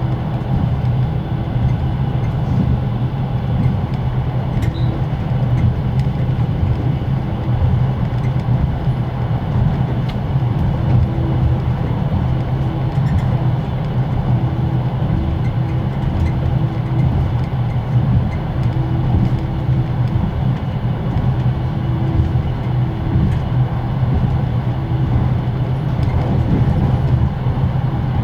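Inside a closed compartment of a moving Russian passenger sleeping car: a steady, loud rumble of the running gear, with the carriage generator's whine and the clatter of the wheels.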